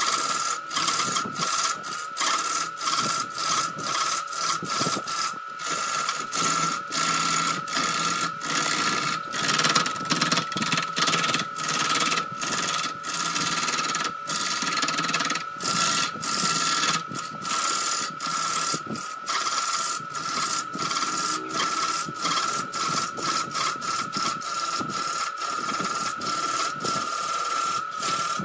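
Wood lathe turning a wooden bowl blank while a hand-held turning tool cuts into it: a loud scraping, rasping cut of steel on wood that keeps breaking off for an instant and coming back, over the lathe's steady high-pitched motor whine.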